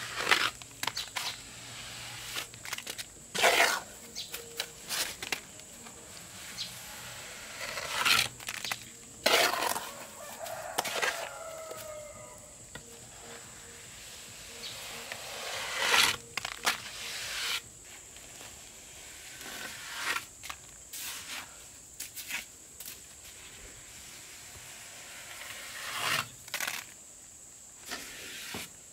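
Steel trowel scraping and knocking against concrete blocks as wet mortar is spread and smoothed, in scattered sharp strokes. A rooster crows once near the middle.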